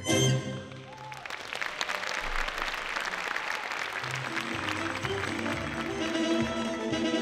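Brassy swing music ends on a final chord about half a second in, followed by audience applause. Sustained notes of a new piece of music come in under the applause near the end.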